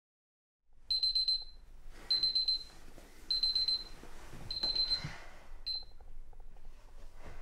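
Electronic alarm clock beeping: five high-pitched bursts of rapid beeps about a second apart, the last one cut short. A single click near the end.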